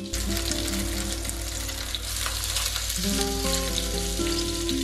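Fish steaks frying in hot oil in a nonstick pan: a steady, loud sizzle that cuts in sharply at the start.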